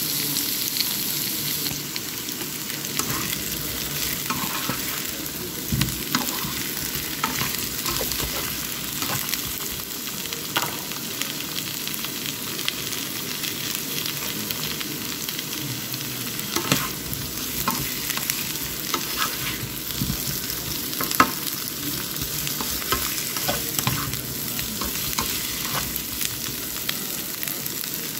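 Boiled potato chunks frying with chopped onion and garlic in a nonstick pan: steady sizzling, with scattered light knocks as they are stirred and turned.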